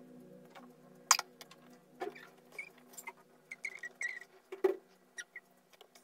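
Scattered faint clicks and small scratchy squeaks, irregular and a few per second, over a soft held music tone that fades out near the end.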